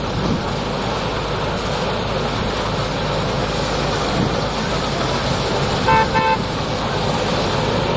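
Mini combine harvester running steadily, with two short toots of a vehicle horn in quick succession about six seconds in.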